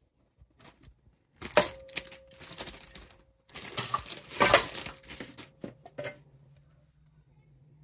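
The metal top cover of a Seagate ST-225 hard drive is handled and set down, giving clinks, knocks and scraping in two bursts: one about a second and a half in, and a louder one around four to five seconds in. A faint low hum sets in near the end.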